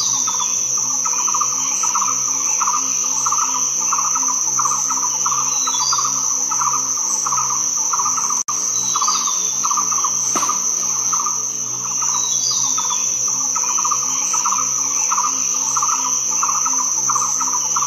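Loud, steady insect chorus: a continuous high-pitched whine with a rhythmic pulsing chirp lower down, about two pulses a second. It cuts out for an instant about eight and a half seconds in.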